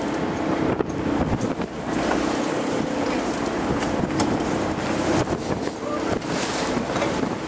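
Fishing boat's engine running at a steady hum, with wind buffeting the microphone and sea water washing past.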